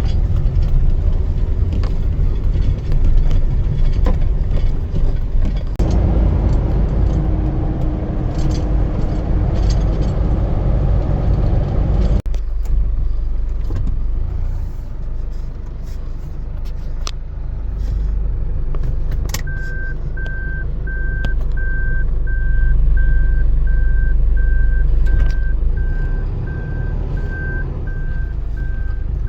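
Engine and road noise inside a moving vehicle's cab, a steady low rumble with a louder rushing layer that drops away abruptly about 12 seconds in. From about 20 seconds in, a dashboard chime beeps repeatedly at a single pitch, about two beeps a second.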